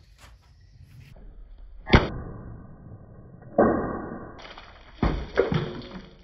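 A large knife forged from a saw blade slashing through full plastic water bottles. There is a sharp whack about two seconds in, another about a second and a half later, and two close together near the end, each followed by a hissing splash of water.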